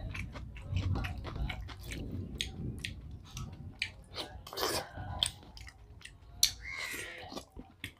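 A person chewing a mouthful of rice and chicken, wet and close to the microphone, with many short, sharp mouth clicks.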